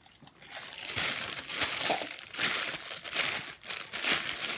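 Hands squishing and kneading homemade slime mixed with clay: an irregular, crackly squelching that starts about half a second in.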